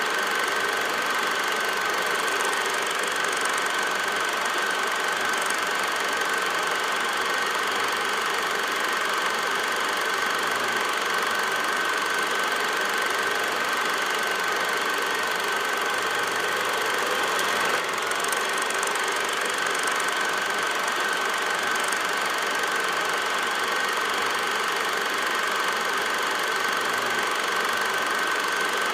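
Steady mechanical running noise of a film projector, an even whir with a constant high-pitched whine, heard in place of any game sound on the old silent football film.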